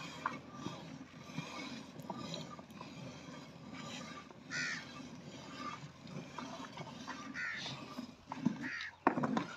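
Buffalo hand-milked into a steel bucket: streams of milk squirting into the pail. Crows caw several times, from about halfway through to near the end.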